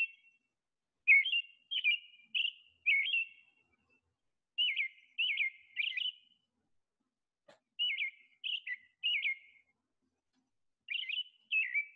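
American robin singing: short, clear whistled phrases in groups of three or four with pauses between the groups, played from a recording.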